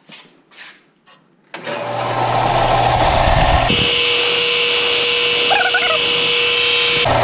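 Bench belt sander started about a second and a half in and running. From about halfway the edge of a G10 (FR4) epoxy-fiberglass sheet is held against the belt, adding a high grinding hiss and a steady tone, until shortly before the end, when the sander runs free again.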